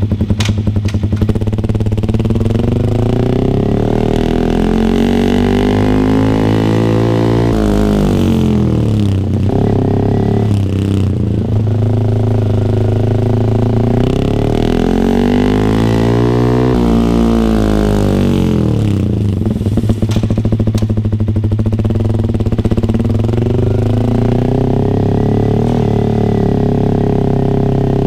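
Yamaha R15 V3's single-cylinder 155 cc engine breathing through an R9 GPX-SS full-system aftermarket exhaust, idling steadily. It is revved twice, each time rising smoothly in pitch over a few seconds and falling back to idle.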